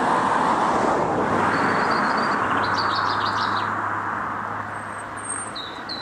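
A car driving past on the road, loudest at first and fading gradually as it moves away. A small bird twitters briefly about halfway through.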